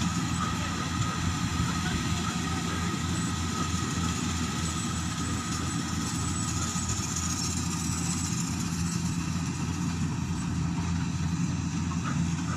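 An engine running steadily at a constant speed, with a steady high whine over its low hum.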